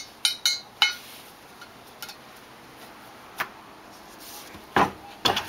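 Steel wheel rim and tire being handled while a rubber bicycle inner tube is worked onto the rim: three quick sharp knocks with a brief metallic ring in the first second, scattered light taps, then two louder knocks near the end.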